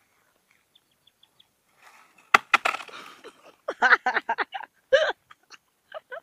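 A tree branch snaps with one sharp crack about two seconds in, followed by the rustle and crash of the leafy branch coming down. A second later, voices break out in short, excited bursts.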